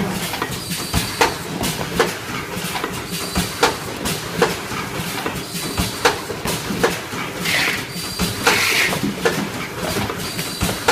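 Automatic cellophane overwrapping machine running, a sharp mechanical clack about every 0.8 s as it cycles through each box, over a steady machine din. A short high squeak recurs every couple of seconds, and two brief rustles come about three-quarters of the way through.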